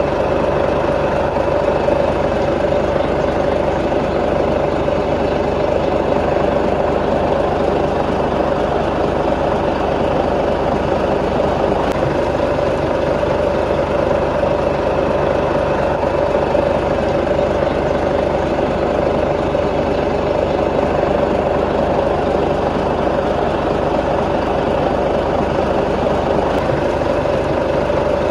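Diesel engine of heavy earthmoving machinery running at a steady, unchanging speed, without revving.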